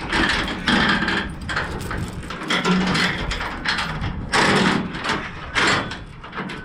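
Steel tie-down chain being handled, with irregular clanking and rattling and a few sharper knocks, loudest about 4 and 5½ seconds in.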